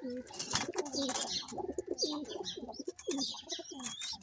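Domestic pigeons cooing over and over in a loft, several low coos overlapping, with high chirps above them.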